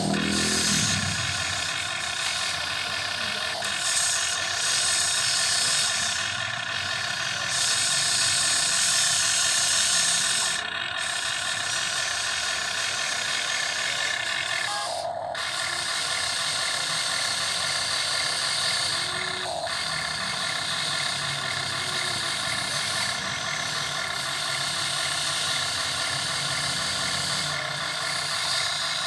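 Radio-controlled model excavator's electric motors whining steadily and high-pitched as it works, with a few brief breaks.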